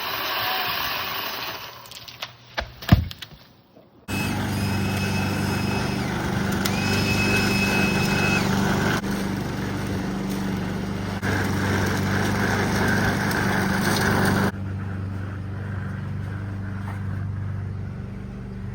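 An engine running steadily, starting suddenly about four seconds in and dropping to a lower, quieter level near the end. Before it come a few knocks, with one loud bang about three seconds in.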